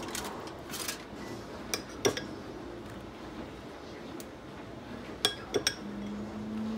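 A metal spoon clinks against a bowl while sauce is spooned onto the fish: a few sharp clinks in the first two seconds, then a quick cluster of clinks about five seconds in.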